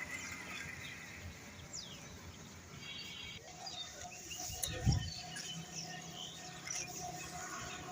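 Birds chirping and calling: short high calls scattered throughout, including a falling whistle and a brief trill, with a single low thump about five seconds in.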